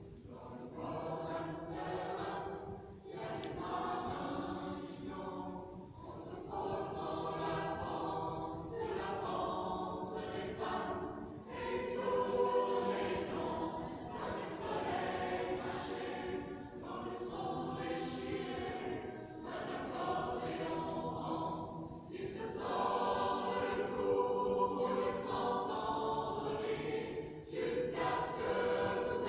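Choir singing in a cave, phrase after phrase with short breaks between them.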